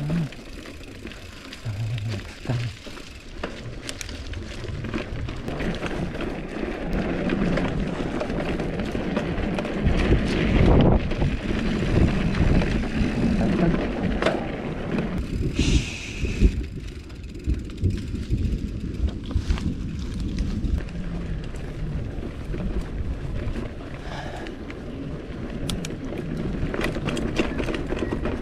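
Mountain bike (GT Avalanche hardtail) riding down a rocky dirt trail: tyres crunching over loose stones, with the bike rattling and knocking over the bumps. There is a heavier jolt about ten seconds in.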